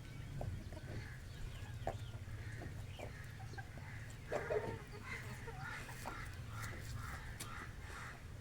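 Domestic hens and a rooster clucking and chirping in short, busy calls while feeding on grain, with a louder call about four and a half seconds in. A few sharp taps are heard, and a steady low rumble runs underneath.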